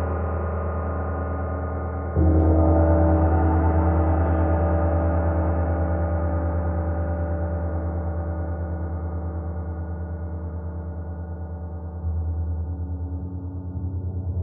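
Gong ringing in a long, slowly fading wash of overlapping tones. It is struck again about two seconds in and more softly near the end, and the sound pulses gently as it rings.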